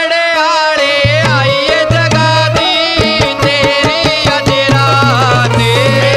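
Haryanvi devotional bhajan music: a quick, even drum beat under a bending, ornamented melody, with a steady low bass note coming in about a second in.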